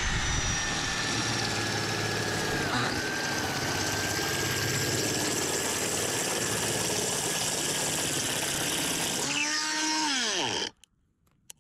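Electric drill running a hole saw to core a hole, running steadily with a whine that dips briefly under load about three seconds in, then released and winding down with a falling whine near the end.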